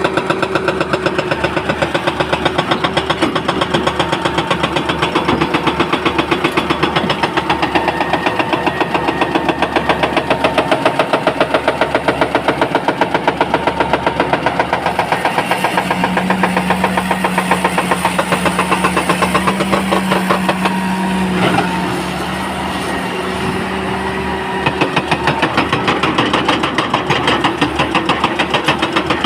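Excavator's diesel engine running with a fast, even pulsing. Past the middle a steady hum joins for about five seconds, then the pulsing briefly gives way to a smoother, quieter sound before it returns.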